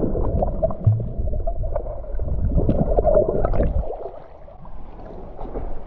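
Muffled gurgling and sloshing of river water, heard through a GoPro held under water by a diver, with small knocks; it is loud for the first four seconds or so, then drops off.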